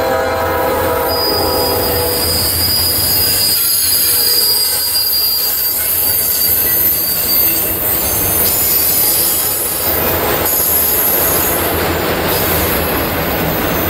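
A freight train of autorack cars rolling past, its wheels squealing in a thin steady high whine over the rumble of the cars. The tail of a locomotive horn fades out about two seconds in.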